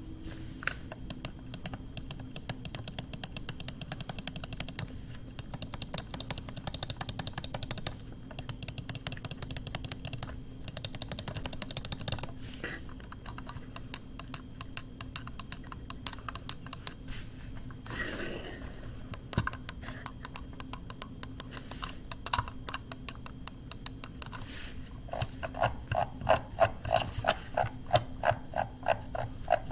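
Razer DeathAdder Elite gaming mouse buttons clicking over and over, in quick runs of sharp clicks with short pauses between. A brief rubbing sound comes about two-thirds of the way through, and the clicks near the end have a deeper tone.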